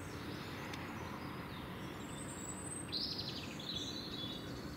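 Steady low ambient rumble, with several short high bird chirps between about two and a half and four seconds in.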